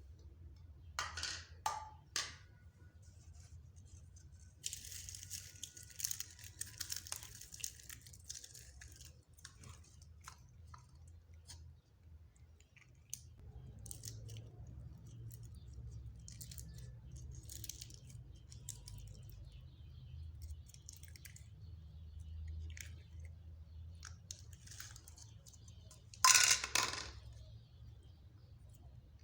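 Slime being mixed by hand, squishing and crackling with short sticky pops. The crackling is dense for a few seconds about a fifth of the way in, and there is one loud crackly squelch near the end.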